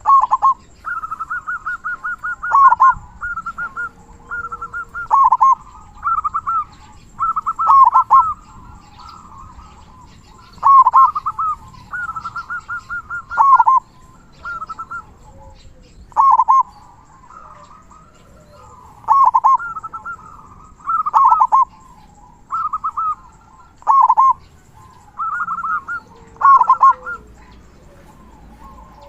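Zebra dove (perkutut) cooing over and over: each phrase is a quick string of short high notes ending in one or two louder, lower 'kung' notes, with gaps of a second or two between phrases. The bird has the big, full 'kung' that keepers prize.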